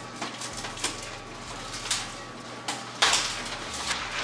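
Packaged food being handled and put away on pantry shelves: rustling packaging and light knocks as boxes are set down, the loudest about three seconds in.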